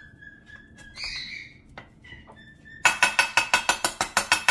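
Rapid light hammer taps on a bearing driver, about nine a second with a metallic ring, seating the large bearing into the heated aluminium right crankcase half of a Honda TRX250R engine; they start about three seconds in. A short high squawk comes about a second in.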